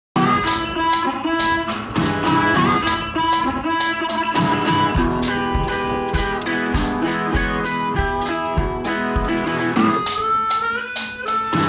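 Music: a guitar-led track with plucked and strummed guitar, starting abruptly out of silence just after the opening.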